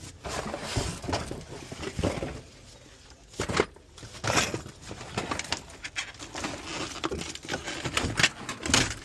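Irregular knocks, clicks and rustling, with no steady machine sound.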